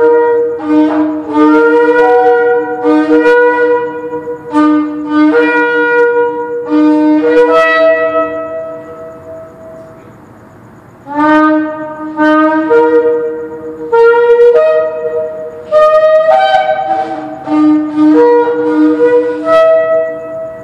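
Two Yemenite kudu-horn shofars blown together, trading short blasts between a low, a middle and a high note and often sounding two notes at once. The blasts echo in a parking structure, and they break off for about two seconds near the middle before starting again.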